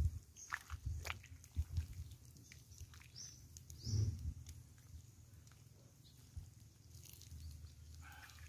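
Metal ladle knocking and scraping in a cooking pot as soup and vegetables are scooped out, with a few short bird chirps and a low wind rumble on the microphone.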